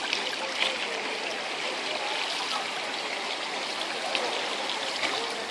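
Pool water splashing and churning steadily as a child kicks, face-down and held by the hands, with small splashes throughout.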